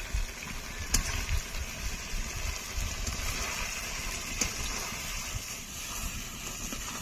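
Chicken curry with potatoes sizzling as it is fried and stirred in a metal kadai, a steady frying hiss at the kashano stage where the masala is cooked until the oil separates. A metal spatula clinks against the pan a couple of times.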